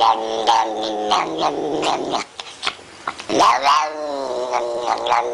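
Domestic cat yowling in long drawn-out wails. The wails break off into a quieter moment about two seconds in, then another wail rises and falls.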